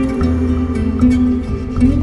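Background music: a calm new-age track with sustained notes over a low bass line.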